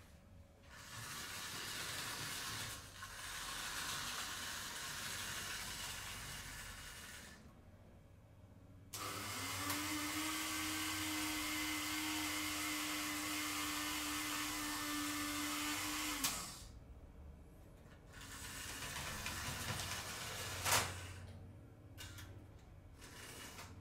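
Model railway sounds: a streamlined Märklin locomotive's small motor running as it moves onto the turntable. Then the Märklin electric turntable's motor runs for about seven seconds with a steady hum as the bridge turns, stopping with a clunk. The locomotive's motor runs again as it drives off, with a sharp click near the end.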